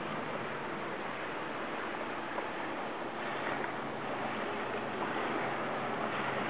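Steady engine hum and rushing water from a jet ski running close alongside, getting a little louder from about halfway in as it comes nearer.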